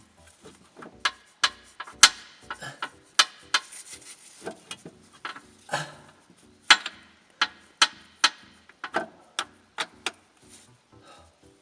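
Irregular metallic knocks, clinks and scrapes as a car alternator is worked into its mounting in the engine bay. The two loudest knocks come about two seconds in and a little before seven seconds in.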